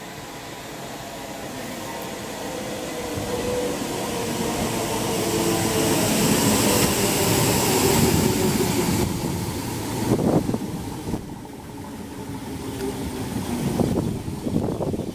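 Trains passing through a station on the main line close to the platform. The first builds to a loud peak and drops away about nine seconds in. Near the end a second train runs past, with sharp knocks from the wheels and rail joints.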